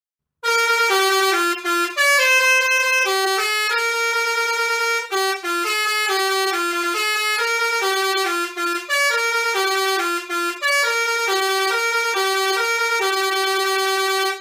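Bus 'telolet' musical air horn playing a tune of many short stepped notes, starting about half a second in, with a few brief breaks between phrases.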